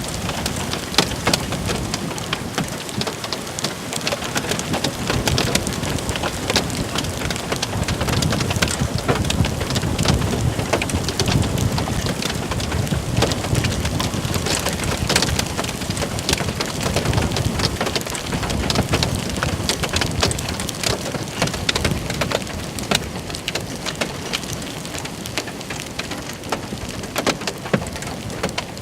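Heavy rain pattering on a nearby surface, with many sharp drop ticks, and a long low rumble of thunder through the middle.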